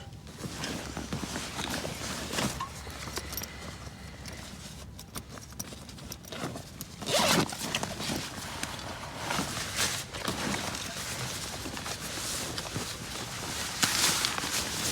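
Irregular rustling and scuffing of camping gear being handled and packed, with scattered knocks and a few louder brushing swishes about halfway through and near the end.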